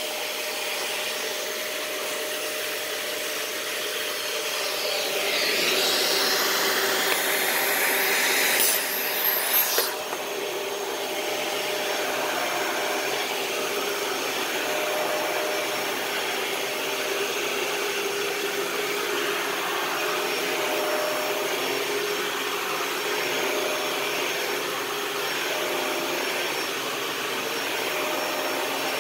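Dyson DC41 Animal Complete upright vacuum cleaner running, a steady rush of air over a faint motor hum. From about five seconds in the rush grows louder and hissier, with a few brief spikes, then drops back sharply about ten seconds in and runs on steadily.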